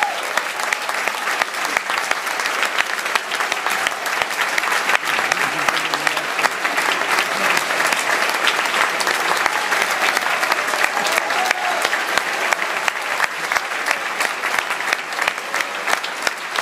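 Theatre audience applauding during a curtain call: dense, steady clapping that holds at the same level throughout.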